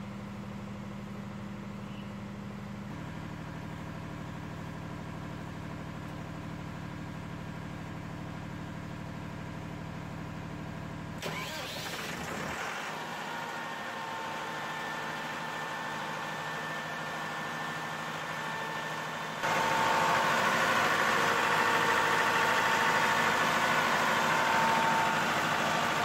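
Perkins diesel generator engine starting about eleven seconds in, after a steady low hum, then running steadily. It becomes clearly louder at about nineteen seconds.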